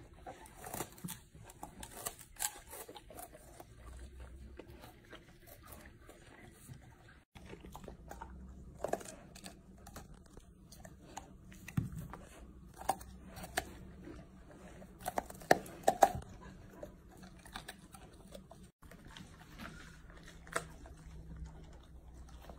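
Golden retrievers gnawing and chewing produce, starting with sugarcane stalks: irregular crunching, cracking and tearing as they bite and pull at it, with a few sharper crunches in the middle.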